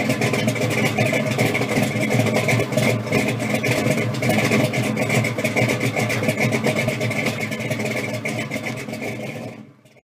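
Ford Falcon pro street car's engine running steadily with a rapid, even firing rhythm, fading out to silence near the end.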